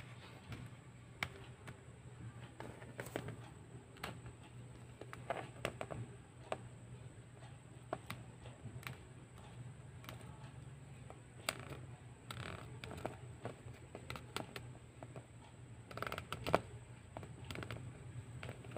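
Faint handling noise from a plastic Godzilla toy figure being turned and gripped in the hand: scattered light clicks, taps and rubbing, in a few small clusters, over a steady low hum.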